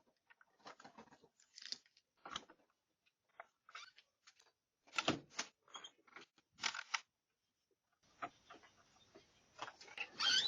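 A person chewing crunchy food close to the microphone: irregular crunches with short silent gaps between them. A faint steady hiss comes in near the end.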